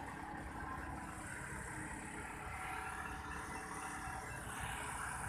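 Motor vehicle engines on a mountain road, a steady rumble without distinct events.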